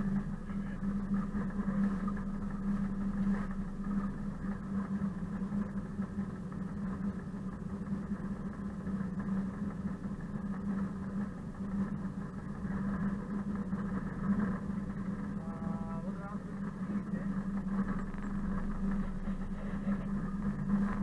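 Diesel engine of a ČKD class 742 diesel-electric locomotive running at a steady, constant drone, picked up by a camera mounted on the locomotive.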